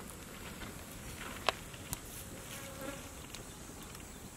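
A flying insect buzzing faintly around the food, with a sharp click about a second and a half in and a smaller one just after.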